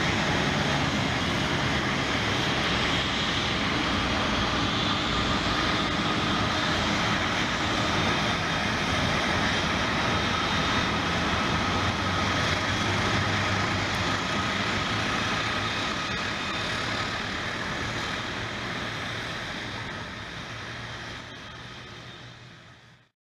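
Jet engines of an Airbus A350-900 (Rolls-Royce Trent XWB) running, a steady rushing noise with a faint whine. It fades away over the last several seconds, then cuts off abruptly.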